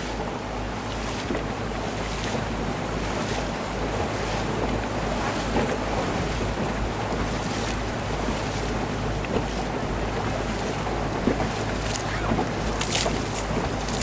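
A boat's motor hums steadily as the boat moves along, with wind buffeting the microphone and water washing past.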